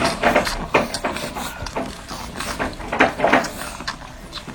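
Newborn French Bulldog puppies nursing: irregular short squeaks, grunts and wet suckling noises in quick succession.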